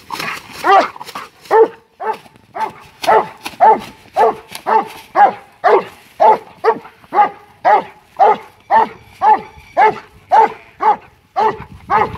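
Working sheepdog barking repeatedly in an even rhythm, about two barks a second, driving sheep through the yards.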